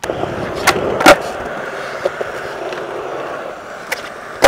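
Skateboard wheels rolling steadily on smooth concrete, with a couple of sharp clacks about a second in. Near the end a light tail pop is followed by a loud clack as the board comes back down from a flip trick.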